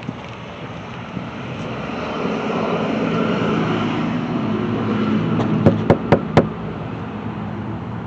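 A motor vehicle's engine and road noise swelling over a few seconds and then easing off. Near the end come four sharp knocks in quick succession.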